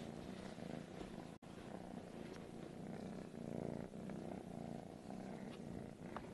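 Kitten purring steadily, a low pulsing rumble, with a momentary dropout about a second and a half in.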